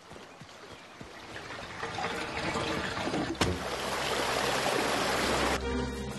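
Cartoon sound effect of water rushing through a dam's outlet, swelling louder, with one sharp pop about three and a half seconds in. The rush cuts off near the end as music comes in.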